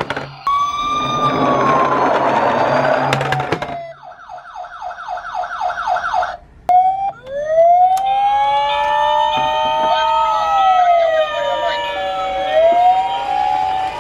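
Emergency-vehicle sirens: a slow falling wail, then a fast yelp for about two seconds, then several wailing sirens rising and falling over one another with a two-tone hi-lo siren alternating beneath them.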